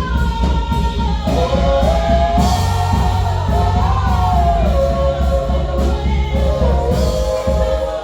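A choir singing a gospel song with a band, long held notes over a steady bass and drum beat.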